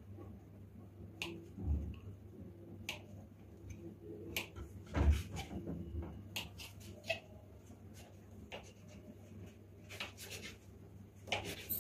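Scattered light knocks and clicks of a knife cutting a roll of bread dough into pieces on a stone counter, the strongest about five seconds in, over a low steady hum.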